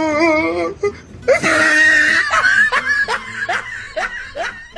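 A person laughing hard: a high squeal of laughter, then a run of short laughs about three a second.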